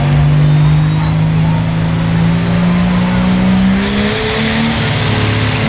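Turbocharged diesel pickup truck engine running hard under load during a sled pull, its pitch climbing slowly. About four seconds in the engine note changes and a high hiss grows louder.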